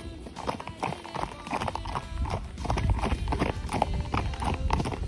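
A ridden horse's hooves clip-clopping, several strikes a second, over a low rumble that grows louder about halfway through.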